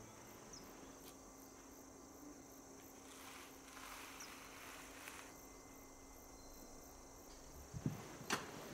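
Faint chirping of crickets with a faint steady hum underneath. Near the end come a few soft knocks and rustles of someone moving.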